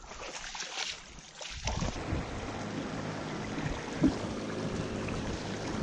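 Boat motor of a wooden canoe running steadily with water and wind noise, coming in about a second and a half in. A single sharp thump about four seconds in.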